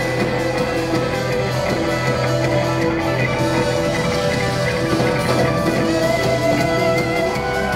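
Live rock band playing loud and steady, with electric guitars and keyboards.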